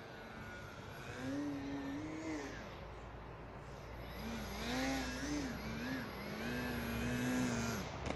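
Electric motor and propeller of a small LED-lit radio-controlled aircraft flying close by. The hum rises and falls in pitch with throttle and movement, louder for about a second near the start and again through the second half.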